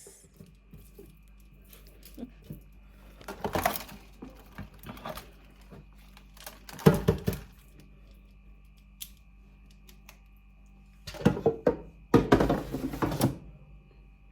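Several bursts of knocking and rustling from things being handled, the loudest about seven seconds in and a longer run near the end, over a faint steady hum.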